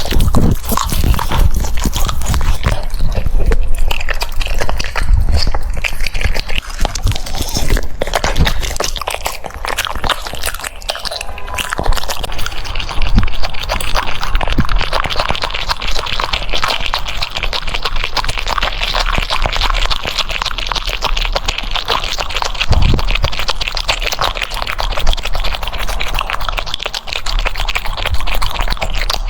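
French bulldog crunching and chewing food, a continuous run of wet, crackling bites that grows denser about twelve seconds in.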